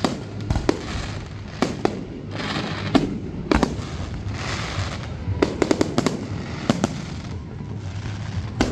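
Aerial fireworks going off: rockets launching and bursting in an irregular string of sharp bangs with crackling between them, and a quick run of pops a little past the middle.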